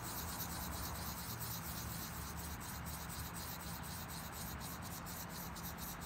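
Wet sanding stick scrubbing over a carved Wonderstone piece in quick, even strokes, wet sanding to remove the file scratches from the stone.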